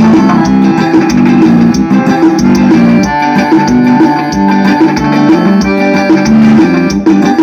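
Loud music with a repeating low melodic figure over a steady beat.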